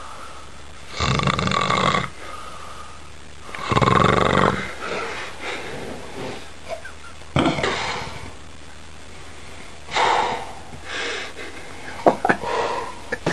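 A man snoring in his sleep, with a loud rasping snore every few seconds and quieter breathing in between.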